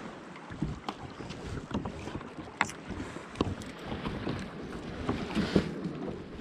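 Wind rumbling on the camera microphone and water lapping against the hull of a Hobie Mirage Passport pedal kayak, with scattered small knocks and clicks, two of them sharper, from the rod and kayak being handled.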